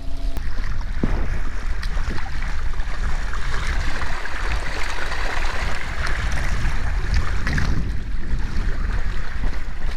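Wind rumbling on the microphone over water splashing and lapping around a canoe being paddled.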